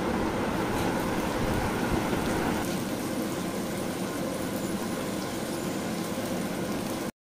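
Sliced onions and whole spices sizzling steadily in deep ghee in a steel pot, stirred with a silicone spatula. The sizzle cuts off abruptly near the end.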